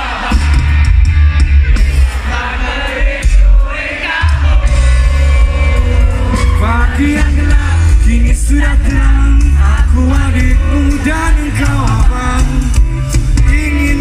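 Live rock band performing a song: loud amplified music with heavy bass and a singing voice over it, the sung melody clearest from about six seconds in.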